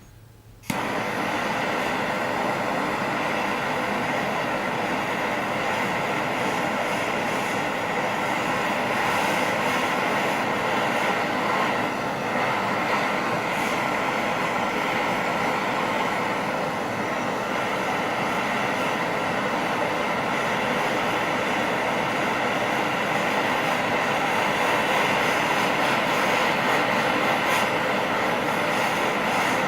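Gas torch burning with a steady roar as it heats the steel for bending. It lights abruptly about a second in and holds steady, growing a little louder near the end.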